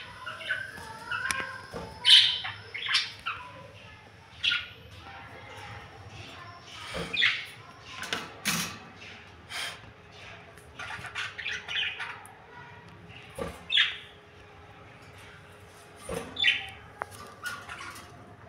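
Pair of Fischer's lovebirds giving many short, sharp, irregular chirps and squawks, with a few knocks mixed in.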